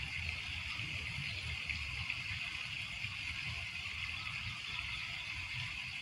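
Small lake waves lapping: a steady watery hiss over a low, uneven rumble.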